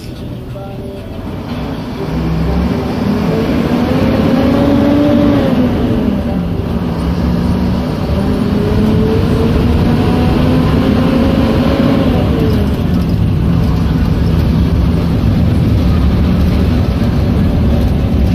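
Bus engine heard from inside the cab, pulling along a dirt road; it gets louder about two seconds in, and its pitch climbs and falls back twice as it changes gear, over steady road noise.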